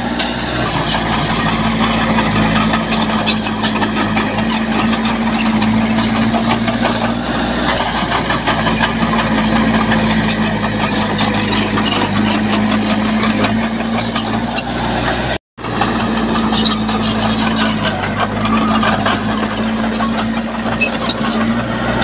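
Heavy diesel earthmoving machinery running steadily under a clatter of many small metallic clicks and rattles. The sound cuts out abruptly for a split second about two-thirds of the way through.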